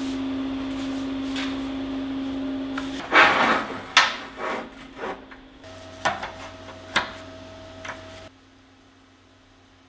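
A steady machine hum for about three seconds, then a series of sharp scrapes and knocks, about a dozen over five seconds, as tools and parts are handled on a workbench.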